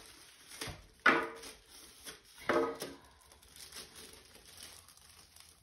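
A plastic-wrapped bathroom scale being handled and lifted out of its packaging, the wrap crinkling faintly, with two short, sharp sounds about a second and two and a half seconds in.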